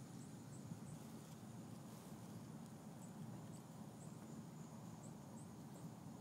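Quiet outdoor background: a steady low rumble with faint, short, high-pitched chirps repeating every half second or so.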